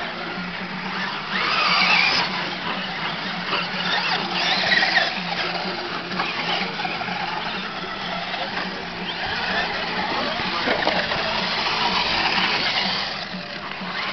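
Radio-controlled monster trucks racing on a dirt track: a high motor whine with tyre and dirt noise that swells and fades as the trucks pass, loudest about two seconds in, around four to five seconds in, and again near the end.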